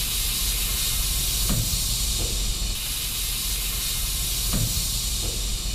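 Stretch limousine engulfed in flames, burning with a steady loud hiss and rush of fire. Two dull thuds come through it, about three seconds apart.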